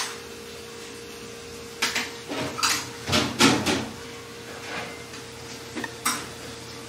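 Tableware clinking and knocking: short clatters of bowls, plates and cutlery, a cluster of them in the middle and a single clink near the end, over a steady low hum.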